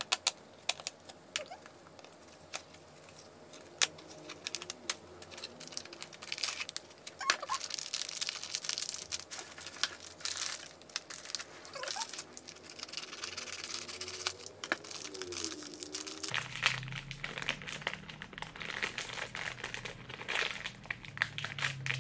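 Packaging being torn and crinkled open by hand: a small cardboard snack box popped open at its tab with a few sharp clicks, then a foil inner bag crinkling and tearing steadily as it is worked open.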